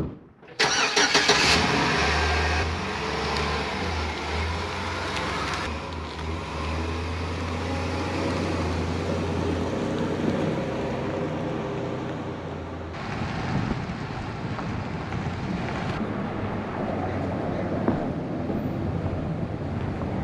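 A Chevrolet Silverado pickup's door shuts with a thud. About half a second later the engine starts and runs with a steady low hum, and then the truck pulls away, its engine and road noise carrying on.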